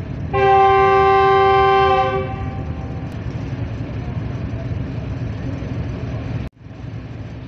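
Diesel-electric locomotive horn, a GE U40 of Pakistan Railways, sounding one blast of about two seconds, a chord of several tones, signalling the train's departure. The steady low rumble of the train runs underneath, and all sound cuts out briefly near the end.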